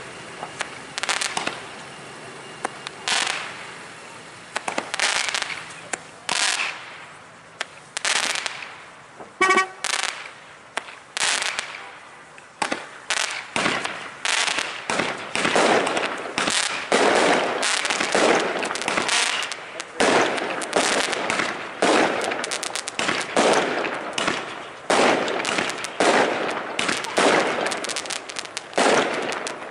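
Fireworks display: aerial shells bursting with sharp bangs that echo, a few seconds apart at first, then a rapid, near-continuous barrage over the second half.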